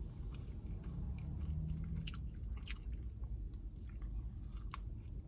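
Close-up chewing and biting of a chicken sandwich, with sharp wet mouth clicks about two, three, four and five seconds in, and a fresh bite about four seconds in.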